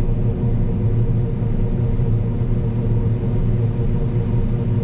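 Combine harvester running steadily at working speed during soybean harvest, a constant low drone of engine and threshing machinery.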